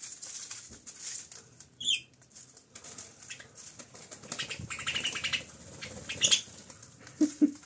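Budgerigars in a wire cage: wings flapping and fluttering as one bird takes off from the perch, with a few short high chirps.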